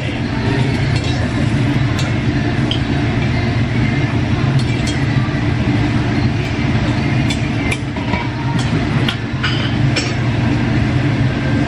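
Steady low rumble of a busy Korean barbecue restaurant, with short clinks of utensils against dishes now and then.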